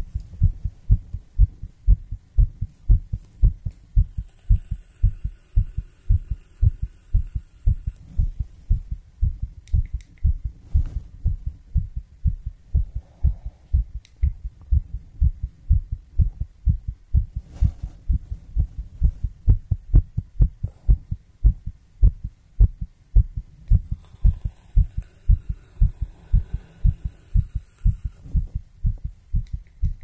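Heartbeat: a steady, regular rhythm of low thuds, about two to three a second.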